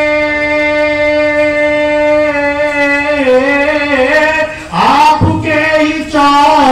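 A devotional song: a singer holds one long steady note for about three seconds, then ornaments it with wavering turns and moves into shorter sung phrases over instrumental backing.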